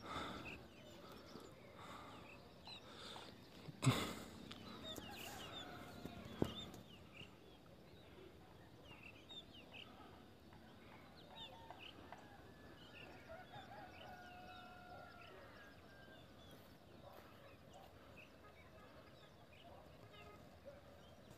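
Faint chickens clucking among many small bird chirps. There is a thump about four seconds in and a sharp click a couple of seconds later.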